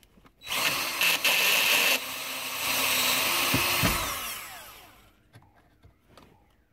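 A small power tool's motor runs for about three and a half seconds, then winds down and fades out.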